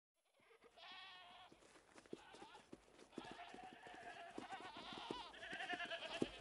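A flock of sheep bleating, many calls overlapping, starting about half a second in and growing louder, with many small clicks among them.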